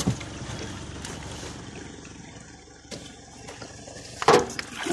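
Brown floodwater rushing and sloshing along the side of a jeep wading through deep water, heard from inside the cab as a steady wash, with a short louder burst about four seconds in.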